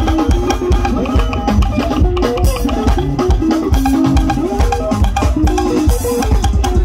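Live sungura band music: quick, stepping electric guitar lines over bass guitar and a busy, steady drum-kit beat.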